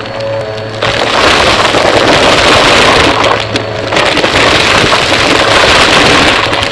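Vacuum cleaner running, its motor hum joined about a second in by a loud rush of suction air. The air dips briefly around three seconds in, then comes back.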